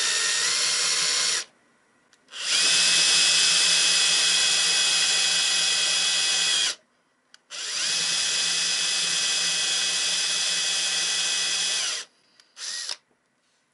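Bosch cordless drill boring into a small wooden lure blank, running in three long stretches of a few seconds each with short pauses between, then a brief blip near the end. The motor whine rises as it spins up at each start.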